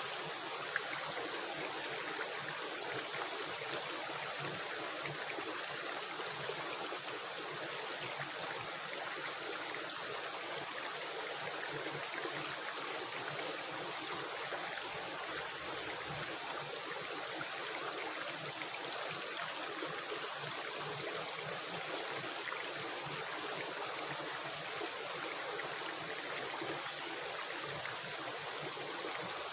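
River or stream water rushing and gurgling steadily over rocks.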